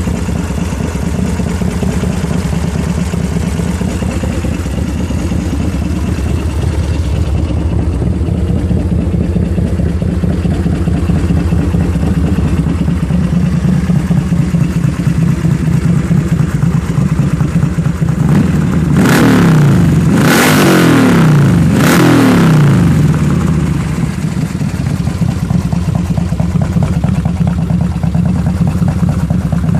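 S&S 131 cubic-inch stroker V-twin with 625 cams, in a 2003 Harley-Davidson Road Glide, idling. About two-thirds of the way in the throttle is blipped three times in quick succession, the pitch rising and falling with each rev, before it settles back to idle.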